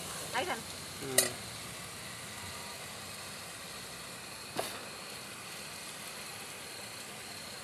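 Spice masala (garlic, chilli, ground coconut, tomato-onion paste) frying in hot oil in an aluminium pot: a steady sizzle while it is stirred, with two short knocks of the ladle in the first second and a half and one more click about halfway through.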